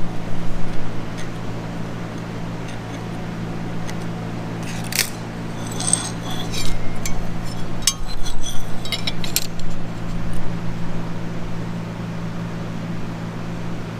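Steel parts and tools clinking and tapping in a run of sharp metallic clicks with short ringing, from about five seconds in to about nine and a half. A steady low hum of shop machinery runs underneath.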